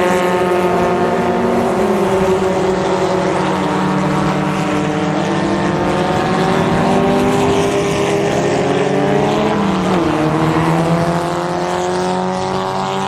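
Several Formula Ford 1600 single-seaters' engines running at race revs, their pitch sliding up and down as the cars brake, shift and accelerate through the corner. The sound drops a little in level near the end.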